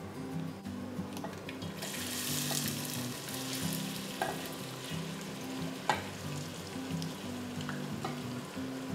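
Diced onions hitting hot melted fat in an enamelled cast-iron pot, sizzling and frying from about two seconds in, strongest at first and then settling. Two sharp knocks come later, and soft background music with a low bass line runs underneath.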